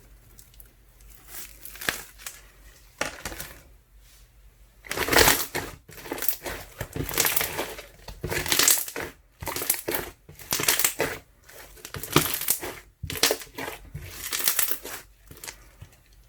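Ice slime mixed with soothing gel being squeezed and pressed by hand, giving crunchy, crackling squishes in repeated bursts. It is faint for the first few seconds, then louder, about one squeeze a second.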